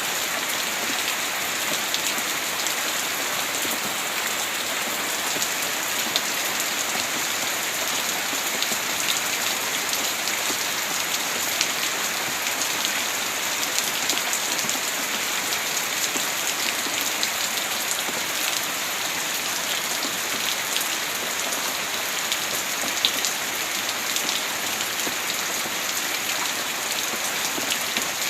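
Heavy rain falling steadily: a dense, even hiss with many scattered sharp ticks of drops striking a surface.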